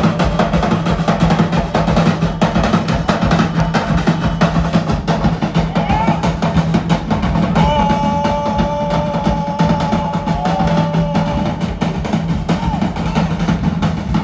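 Live Polynesian drum music: fast, dense drumming over a deep drum beat, with two held tones joining about eight seconds in for a few seconds.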